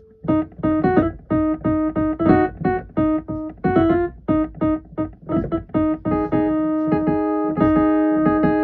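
Electric keyboard played in quick short notes, many repeating on the same pitch, then held notes sounding together from about six seconds in.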